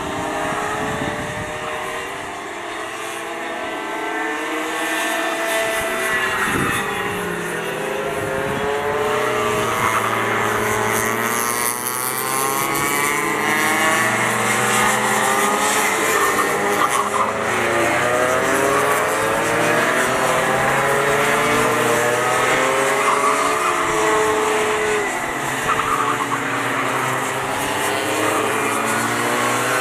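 Several racing go-karts' small two-stroke engines circulating on track, their overlapping whines rising and falling in pitch as they accelerate and lift off through the corners.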